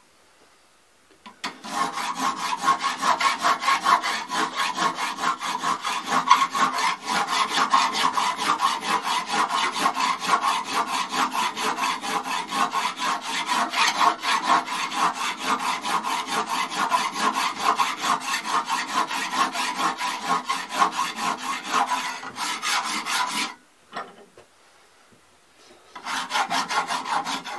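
Hand file rasping in quick, even back-and-forth strokes across a cast brass long-rifle butt plate held in a vise, filing out pits in the rough casting. The filing starts about a second and a half in, stops for about two seconds near the end, then starts again.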